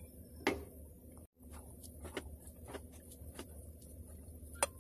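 A spoon clinking and scraping against a frying pan and plate as cooked polao rice is scooped out: a sharp clink about half a second in, a few fainter taps, and another sharp clink near the end, over a low steady hum.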